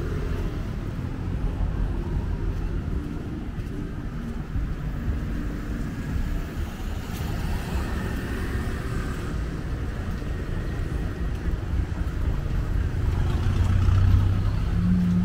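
Street traffic: a steady low rumble of passing cars. Near the end a vehicle engine's hum grows louder as a pickup truck drives past close by.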